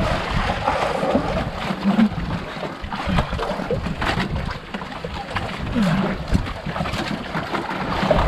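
Sea water lapping and splashing irregularly against the hull of a wooden outrigger fishing boat.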